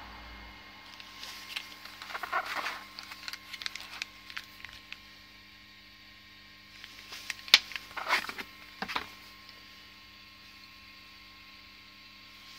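Clear plastic packaging bags crinkling and small parts clicking as scooter variator parts (roller weights, a sleeve, a ramp plate) are handled, in two spells: one starting about a second in, the other about seven seconds in. A steady electrical hum runs underneath.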